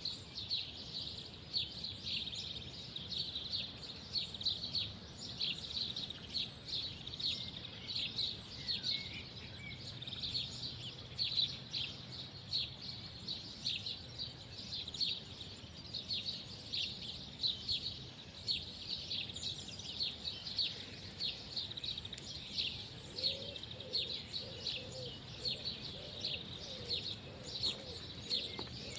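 Many small birds chirping continuously in a busy chorus of short, high notes, with a low cooing call repeating near the end.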